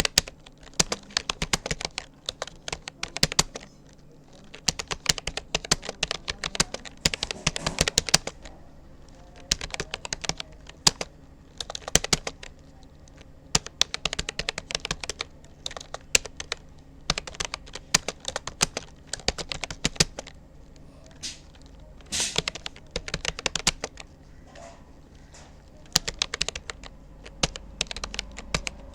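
Typing on a Rapoo computer keyboard: runs of rapid keystroke clicks broken by short pauses of a second or so.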